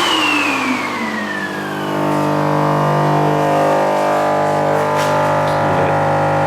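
A power tool's motor switched off and spinning down, its high whine falling steadily in pitch over about two seconds as the rushing noise dies away. Then a steady hum of several held tones sets in.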